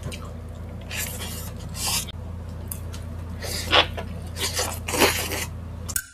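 Two people eating saucy spicy chicken feet and rice by hand: wet chewing, sucking and smacking in short, irregular bursts over a steady low hum.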